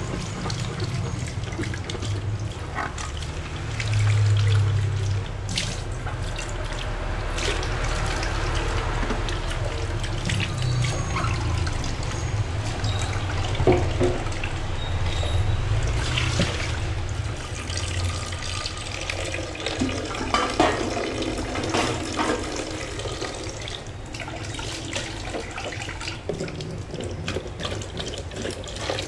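Tap water running and splashing into a stainless steel sink while plastic dishes are rinsed by hand under the stream, with a few sharp knocks of the dishware along the way.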